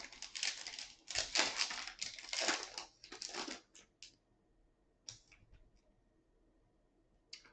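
Foil wrapper of a trading-card pack being torn open and crinkled, a run of crackling rustles for about four seconds. A few faint clicks follow as the cards are handled.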